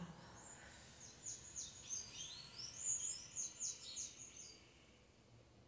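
A songbird singing: a quick run of high chirping notes, many of them sliding down in pitch, lasting about four seconds and stopping about a second before the end.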